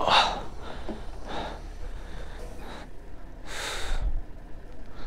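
A man breathing heavily, four long breaths about a second apart, the breathlessness of exhaustion after a long, hard ride.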